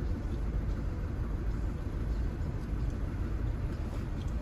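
Four-cylinder diesel engine of a 2010 Audi A3, heard from inside the cabin, idling with a steady low rumble. It is running rough with a dead misfire on one cylinder, which the scan tool traces to a cylinder 4 injector circuit fault (code P0204).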